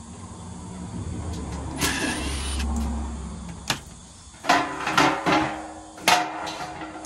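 A cordless drill whirring for a couple of seconds as it backs out the screws holding an air conditioner's fan motor to its sheet-metal blower housing, then a handful of sharp metallic clanks and knocks as the motor and its blower wheel are worked loose and lifted out of the housing.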